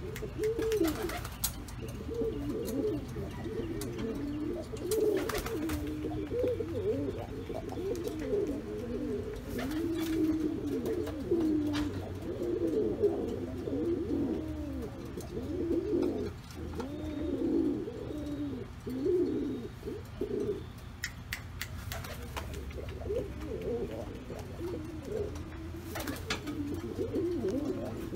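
Male pouter pigeon cooing over and over: a long string of low, rolling, warbling coos with a short lull about three-quarters of the way through. A few sharp taps are heard among them.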